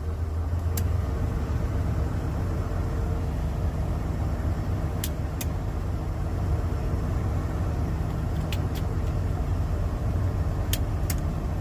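Ford F-150's engine idling steadily, with a few sharp clicks, mostly in pairs a few seconds apart, but no steady flasher ticking: the newly fitted LED turn signal flasher is not working in this truck.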